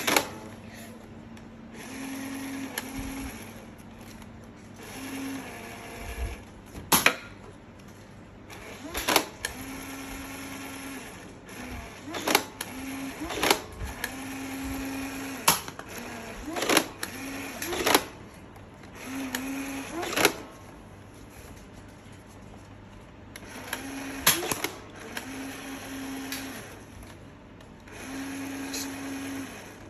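Nerf Infinus blaster's battery-driven flywheel motors whirring in repeated spells of a second or two, with about a dozen sharp clicks and snaps scattered between them as darts are fired.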